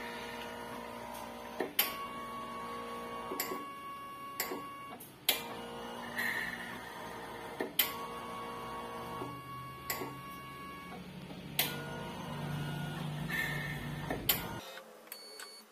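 Mindray BC-2600 hematology analyzer running its startup tubing test: its internal mechanism whirs steadily, with a sharp click every couple of seconds. The running sound stops shortly before the end.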